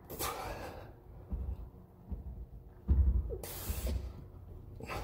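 A man's heavy, effortful breathing as he strains to pull a stuck bladder out of an ATV shock's reservoir: a loud exhale at the start and a sharp, hissing one about three and a half seconds in. Low thuds from the tool and shock being worked sound in between.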